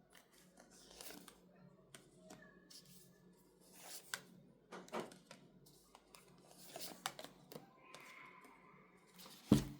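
Fortune-telling cards being handled: scattered light rustles, slides and taps of card stock, with one louder knock near the end.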